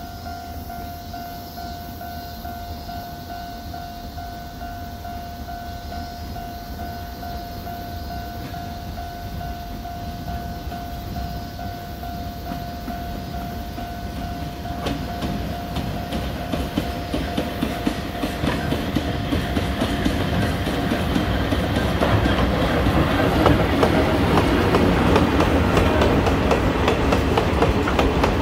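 Electric-locomotive-hauled freight train of limestone hopper wagons approaching: a low rumble and wheel clatter over the rail joints grow steadily louder, loudest near the end. A steady high tone sounds through the first half and fades out about halfway.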